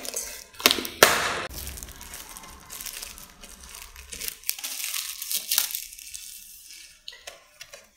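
Thin plastic shrink-wrap being torn and peeled off a plastic food tub, crinkling and crackling. There are two loud cracks about a second in, then the crackling thins out to scattered rustles in the last few seconds.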